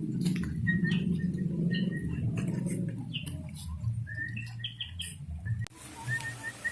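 A small bird chirping repeatedly in short high chirps, over scattered clicks and a low rumble.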